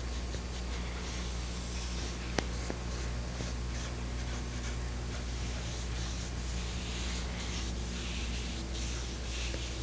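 Light scratchy hand-rubbing strokes on the sofa's sealed wooden frame, coming and going over a steady low electrical hum, with one sharp click about two and a half seconds in.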